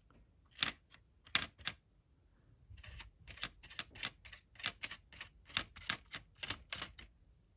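Brush scrubbing on a model corrugated-iron fence panel in short, quick scratchy strokes as weathering colour is worked in. A few scattered strokes come first, then a steady run of about three strokes a second from about three seconds in.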